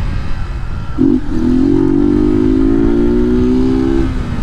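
Honda Titan 150's single-cylinder four-stroke engine pulling under way. The pitch climbs slowly in gear, with short breaks about a second in and near the end that sound like gear changes. A low rumble runs underneath throughout.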